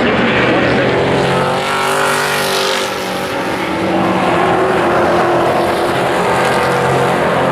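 Pack of Pro Truck race trucks running at racing speed, several engines at once with their pitch shifting as the field passes, busiest about two seconds in.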